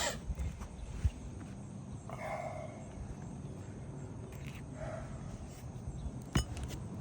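Footsteps scuffing across an asphalt shingle roof, with a few sharp taps; the loudest come about a second in and near the end.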